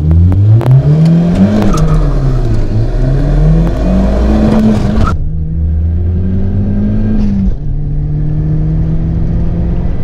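Modified 300 hp Tofaş Doğan SLX engine, through a straight-piped exhaust with the middle silencer removed, revving up and falling back twice. About five seconds in the sound changes abruptly to a steady, even engine drone.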